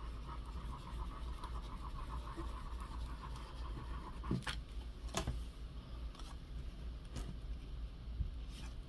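Paper-craft work on a tabletop: about four seconds of fine scratchy rubbing, then several separate sharp taps and clicks as materials are handled.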